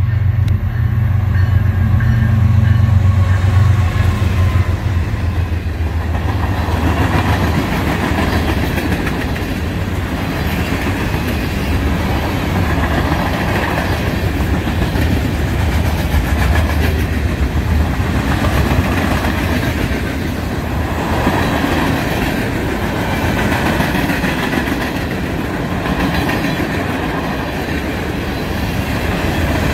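Freight train of covered hoppers and tank cars rolling past at speed: steady steel-wheel rolling noise with a rhythmic clickety-clack of the trucks over rail joints. A low hum in the first few seconds fades away.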